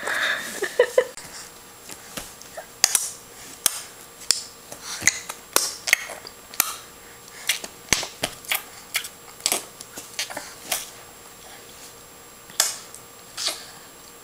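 A string of about twenty irregular sharp taps and clicks, roughly one or two a second, with a pause of a second or so near the end.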